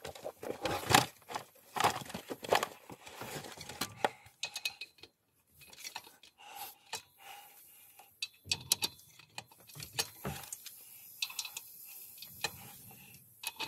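Metal tools and parts clinking and scraping, irregular sharp taps, a few of them ringing briefly.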